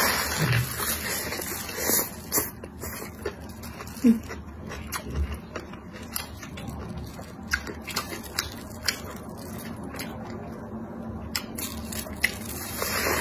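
Biting and chewing a leafy green wrap stuffed with crispy fried filling: wet chewing broken by many short, sharp crunches and crackles.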